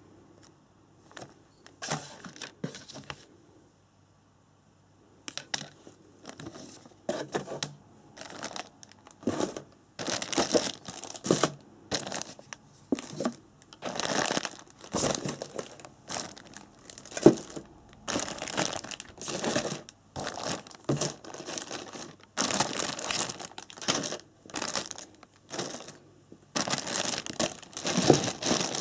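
Clear plastic parts bags of an RC car kit crinkling and rustling as they are handled. The sound comes in irregular bursts, with a short quiet pause about four seconds in.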